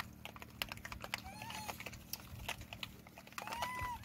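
Rhesus macaque troop foraging on dry ground: a steady patter of small clicks and crackles from food being picked over and chewed, with two short rising-and-falling calls, one about a second in and a longer one near the end.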